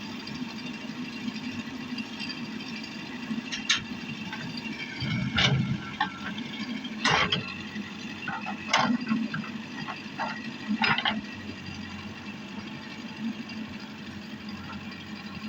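JCB backhoe loader's diesel engine running steadily, with a handful of sharp knocks from the machine's working gear in the middle stretch.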